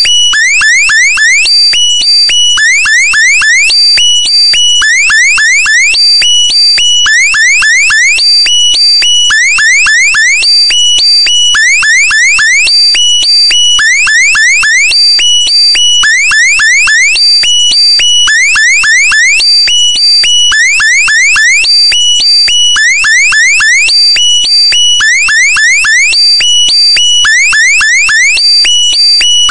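Loud electronic alarm sound effect: clusters of quick rising electronic sweeps repeat about every two seconds over steady high tones, without a break.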